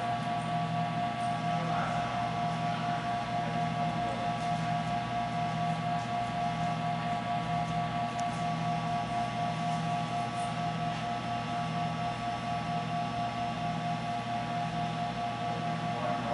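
Palomar HRW 250B capacitor-discharge welding power supply, switched on and charging, with a steady electrical hum and whine. Under it a low buzz pulses about once a second as the stored energy builds.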